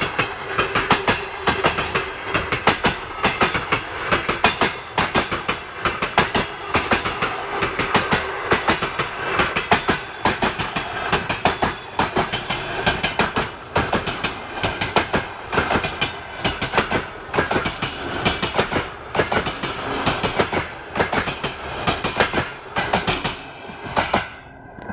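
Passenger train carriages rolling past close by, their wheels clattering in a steady clickety-clack over the rail joints, fading away near the end as the train's tail goes by.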